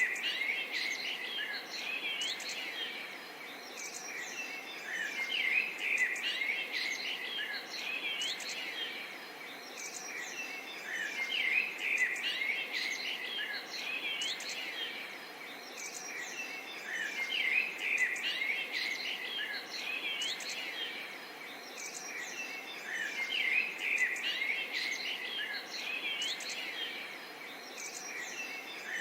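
Many birds chirping and singing at once, a dense chorus of short high calls and quick whistled notes. The chorus swells roughly every six seconds.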